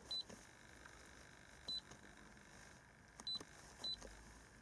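iCarsoft i930 handheld diagnostic scan tool beeping as its keys are pressed to move through the menus: four short, high beeps, each with a small click, at uneven intervals.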